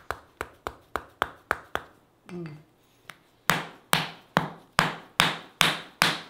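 Mallet tapping a wooden chisel held against a person's leg in percussive bodywork: a steady run of sharp knocks, about three a second. After a short pause the knocks come back louder and a little slower.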